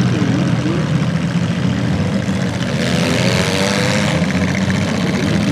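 Several demolition derby car engines running and revving together in a loud, steady din, with a rush of noise for about a second around three seconds in.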